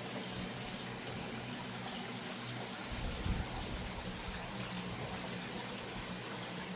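Creek water running steadily, with a brief low thump about three seconds in.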